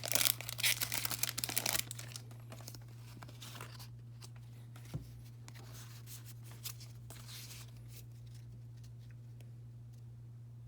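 Trading card pack packaging crinkling and tearing open for about the first two seconds, then only a few faint handling ticks over a steady low hum.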